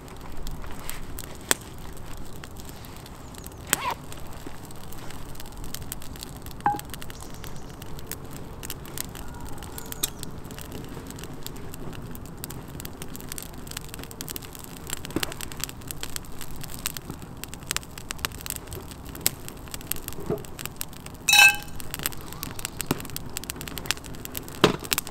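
Small teepee campfire of thin sticks crackling, with scattered sharp pops and snaps as the kindling catches. A short pitched call sounds once, about two-thirds of the way through.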